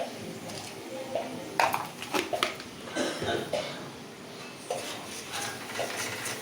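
Spatula scraping and knocking against a kadai while spice masala is stirred and fried, with several sharp clinks, the loudest about a second and a half to two and a half seconds in.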